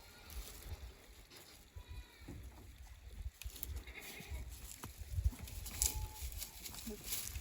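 A goat bleating faintly a few times, over a low rumble.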